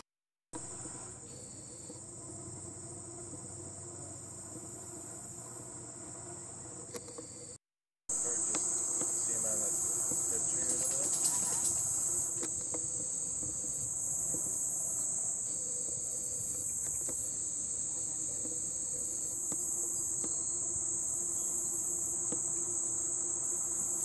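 Steady, high-pitched chorus of insects in summer vegetation, one unbroken whine that drops out twice for a moment and is louder from about eight seconds in.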